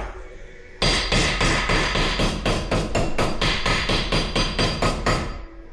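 Rapid hammer blows, about four a second, beating bent parts of a Polaris 120 kids' snowmobile straight again after it struck a tree.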